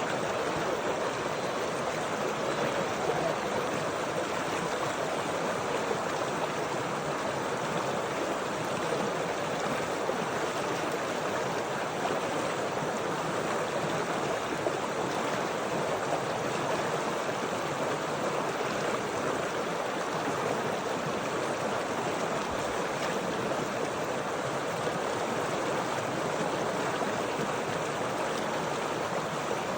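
Stream water flowing and splashing steadily over rocks, an even rushing sound.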